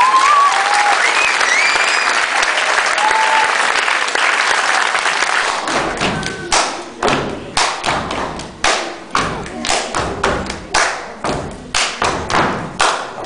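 Audience applause and cheering with a few whoops, dying away over several seconds. About six seconds in, body percussion starts: sharp hand claps and slaps on the chest in a steady rhythm, a little over two strokes a second.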